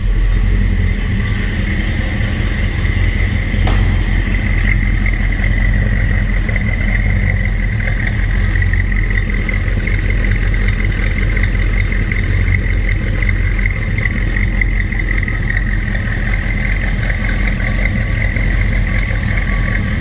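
1967 Ford Mustang engine idling steadily, exhaust through dual Flowmaster mufflers with a deep, even rumble. There is one brief click about four seconds in.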